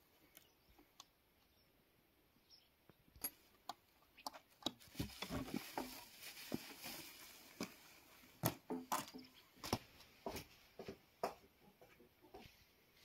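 A wooden door being unlatched and pushed open by hand: scattered clicks and knocks from the latch and door, with the rustle of the woven plastic sheet hung over it. It starts faint and grows busier about three seconds in.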